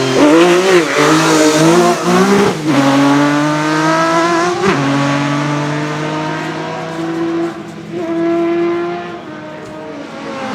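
A hillclimb race car's engine accelerating hard, shifting up twice with sharp drops in pitch about two and a half and four and a half seconds in, then running on at high revs and fading as it climbs away.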